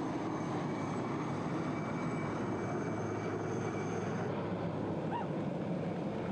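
Helicopter hovering: steady rotor and engine noise with a thin high turbine whine, the whine stopping about four seconds in.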